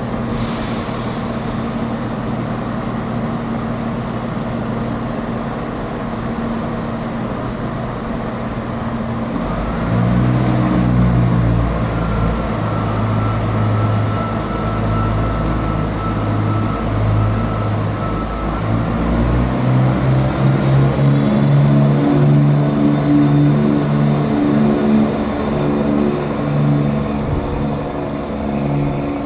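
Class 170 Turbostar diesel multiple unit's underfloor diesel engines idling, then opening up about ten seconds in as the train pulls away, with a thin whine for several seconds and the engine note stepping up again around twenty seconds in. A brief hiss at the very start.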